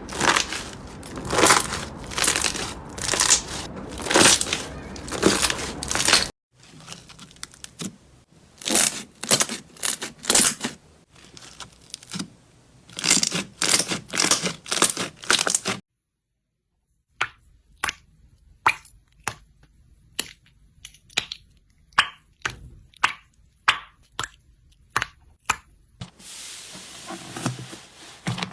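Slime being squeezed and pressed in a series of short clips, giving crunchy, crackling strokes. After a brief silence comes a run of sharp separate crackles and pops.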